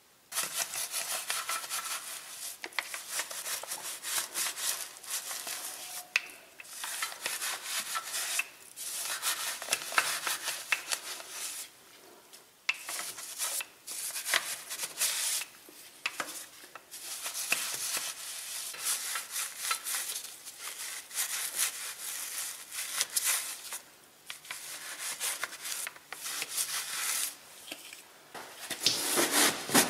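Brush scrubbing a soapy wheel and tyre in quick, irregular scratchy strokes, with several short pauses.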